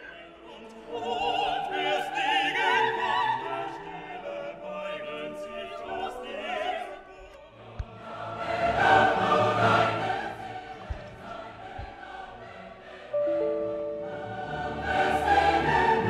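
Classical choral music: a choir and operatic voices singing, with vibrato on the held notes.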